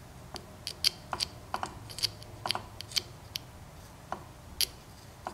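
About fifteen sharp, irregular clicks and taps from a used AC compressor's pulley and magnetic clutch being handled and powered on a bench test.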